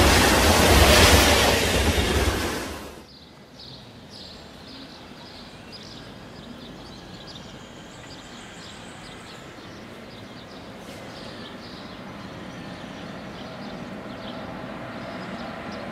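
A train passing close by at speed, loud, cut off abruptly about three seconds in. Then a quieter background with faint high chirps, as a container freight train hauled by an ES 64 F4 electric locomotive approaches from a distance. Its rumble and a faint steady hum grow slowly louder toward the end.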